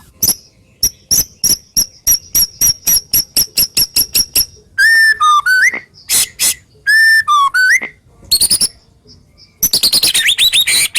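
White-rumped shama singing: a rapid series of sharp ticking notes, about five a second, then loud clear whistles that jump in pitch, and a fast run of notes near the end.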